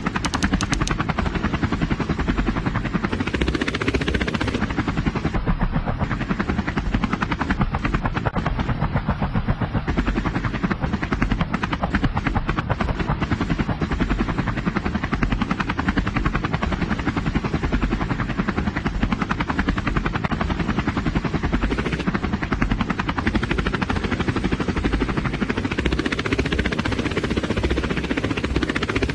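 Helicopter rotor chopping in a fast, steady beat.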